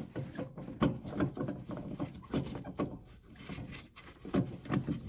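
Irregular light clicks, taps and rustling as a gloved hand fits a new H11 headlight bulb into the plastic headlight housing.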